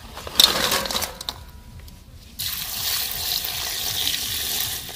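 Broken crab pieces tipped from a steel plate clatter into a metal kadhai about half a second in. From about two and a half seconds, a steady stream of water pours onto the crabs in the pan to wash them.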